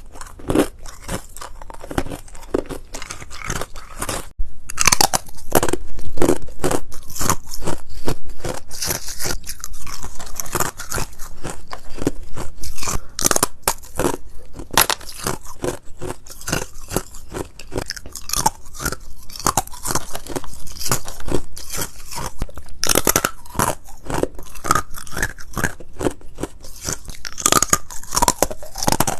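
Ice being bitten and crunched between the teeth: a dense run of sharp cracks and crunches, with a brief pause about four seconds in.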